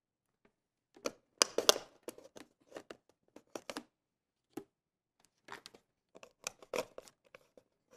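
Hands handling the covered coffee cups and temperature probes: a run of irregular light clicks, taps and crinkly rustles, busiest a second or two in and again near the end.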